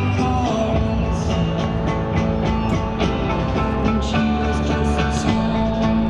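High school marching band playing: held chords from the wind section over regular drum and cymbal hits.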